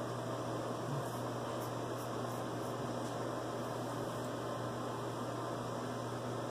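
Steady room hum and hiss, with a few faint scrapes of a vintage Frederick Reynolds straight razor across lathered stubble about two seconds in.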